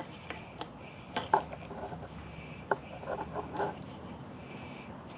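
Small handling noises from hands working wires and crimp connectors: a few light clicks and taps, with a short cluster of small knocks a little past halfway.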